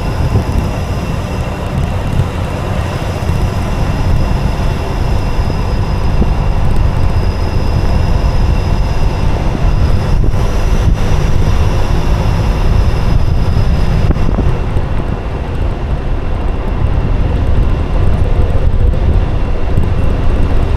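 Jeep driving uphill on a gravel road: a steady low rumble of the engine and tyres on gravel. A thin high whine drops away about fourteen seconds in.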